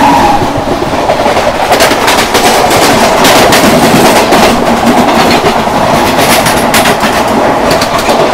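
Two trains passing each other at speed on adjacent tracks, heard from the open door of a moving coach: a loud, steady rush of wheels and wind with a rapid clickety-clack of wheels over rail joints. A train horn cuts off right at the start.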